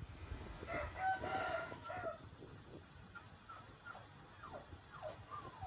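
A rooster crowing once, starting about a second in and lasting just over a second, followed by several short falling calls from fowl.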